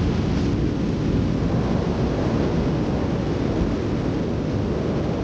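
Heavy ocean surf breaking and washing up the beach: a steady, even roar with a deep low rumble.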